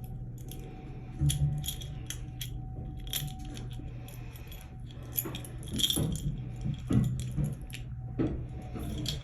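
Small metal objects jingling and clinking in irregular quick clinks, over a steady low hum.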